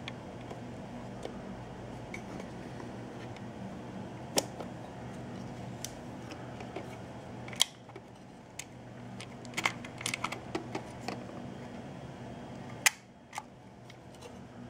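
Meopta Optineta's Metax leaf shutter being fired: a few sharp clicks, the loudest about halfway through and near the end, with a run of small mechanical clicks from the camera's controls in between. A steady low hum lies underneath.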